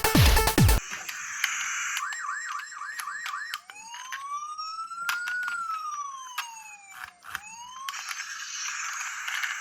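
Electronic siren of a toy emergency-vehicle minicar: a fast rising chirp repeated about four times a second, then one slow wail that rises and falls, with scattered clicks. Music stops about a second in, and a hissing noise comes back near the end.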